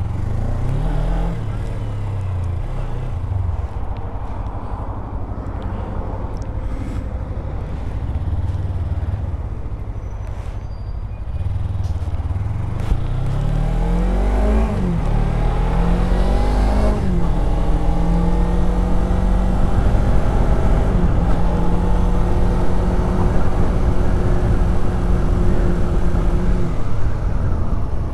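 2018 Suzuki GSX250R's parallel-twin engine pulling away and accelerating, its pitch climbing and dropping back at each gear change, then holding a steady pitch while cruising over the last ten seconds or so. Wind noise rushes underneath throughout.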